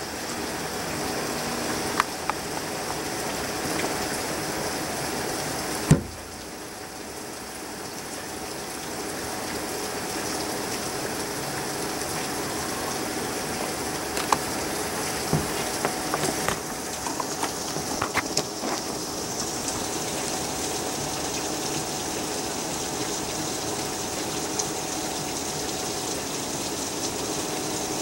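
Heavy storm rain falling steadily, with scattered drips and taps. A faint steady hum runs underneath. A sharp knock comes about six seconds in.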